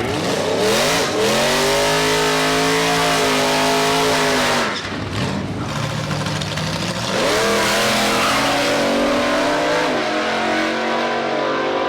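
Drag race cars running at full throttle down the strip. The engine note climbs quickly at the launch and holds high, drops sharply about four and a half seconds in, then climbs and holds again.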